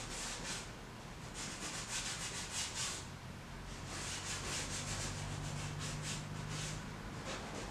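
Paintbrush rubbing yellow ochre oil paint onto a gesso-primed canvas in quick repeated strokes, several a second, with a short pause about three seconds in.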